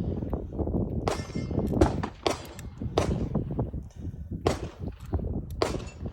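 Nagant M1895 revolver being loaded: a string of sharp metallic clicks and clinks, about seven, spread unevenly, as 7.62 Nagant cartridges go into the cylinder through the loading gate and the cylinder is turned on to the next chamber.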